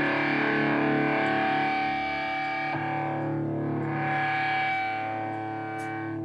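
Stoner doom band playing heavily distorted electric guitars, holding long sustained chords. The chord changes about three seconds in.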